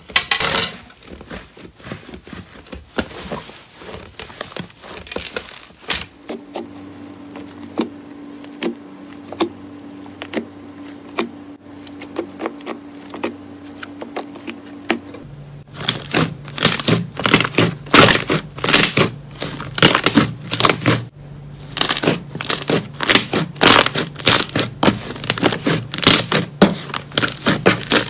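Slime being squished and pressed by hand, giving runs of sharp crackling pops and clicks. The pops come sparsely at first and turn dense and louder about halfway through, over a faint steady hum.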